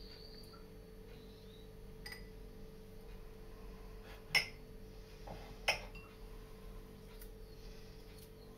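Two sharp clinks of a utensil against a bowl, about a second and a half apart, over a steady low hum.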